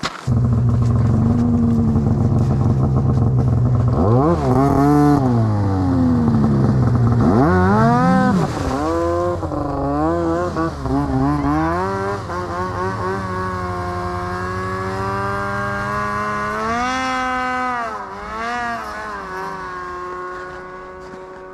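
Snowmobile engine running and revving, its pitch rising and falling several times as it is ridden, then settling to a steadier, quieter run near the end.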